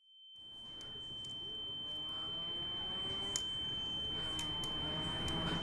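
A single steady high-pitched ringing tone, an ear-ringing sound effect, fading in from silence and holding unchanged, with faint room sound and a few light clicks swelling up beneath it.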